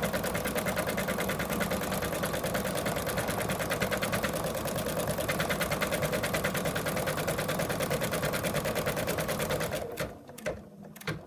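Embroidery machine stitching at a fast, even rate, sewing down a tack-down line that secures an appliqué fabric piece in the hoop. The stitching stops about ten seconds in, followed by a few clicks.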